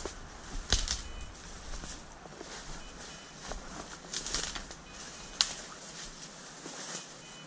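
Footsteps crunching through dry leaf litter and brushing through undergrowth, with irregular crackles and twig snaps. The sharpest snap comes a little over five seconds in.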